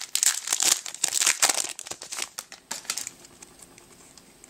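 Foil Yu-Gi-Oh booster pack wrapper crinkling and tearing as it is ripped open by hand, dying down to a few faint rustles and clicks about three seconds in.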